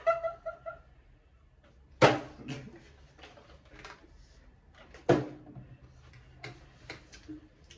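A plastic water bottle is flipped and lands on a dining table twice, each landing a sharp thud followed by a few small knocks, about two and five seconds in. The second landing is a successful flip that leaves the bottle standing upright.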